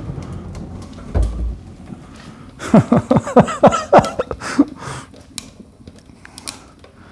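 Burning kerosene in a tin-can rocket stove dies down from a flare-up, with a fading rush of flame. A dull thump comes about a second in. Then a man laughs in a quick run of bursts for about two seconds.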